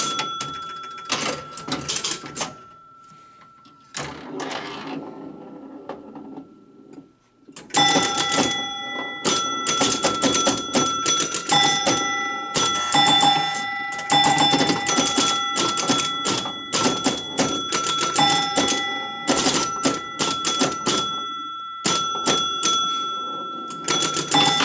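Gottlieb 1969 Airport electromechanical pinball machine clattering with rapid relay and coil clicks and ringing chimes. It goes quieter for a few seconds, then from about 8 seconds in a dense, fast run of clicks and chimes follows. The machine is playing itself, which the owner suspects is the 5B coil doing something weird.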